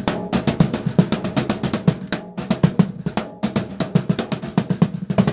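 A cajon built from a gutted microwave oven's metal case, with a thin plywood striking face and bits of barbecue grille as snares, played by hand in a quick, steady run of strokes. Under the strokes a low metallic ring carries on, the drum's metal box ringing.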